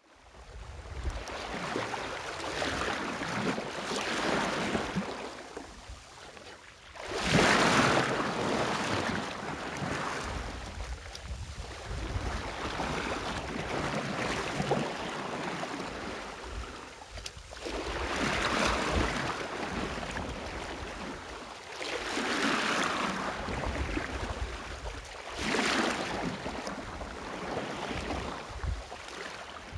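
Sea water rushing and splashing along the hull of a Contessa 26 sailboat under sail, swelling in surges every few seconds as the swells pass, with wind on the microphone.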